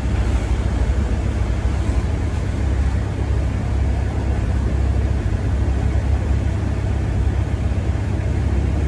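Steady low rumble of a car's running engine with the air-conditioning on, heard from inside the cabin.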